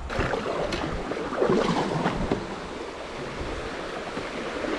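Moving river water rushing and splashing around a kayak, starting abruptly and loudest about a second and a half to two seconds in.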